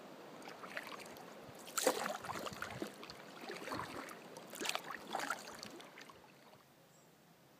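Canoe paddle dipping and splashing in the river water, a handful of strokes about a second apart, dying away near the end.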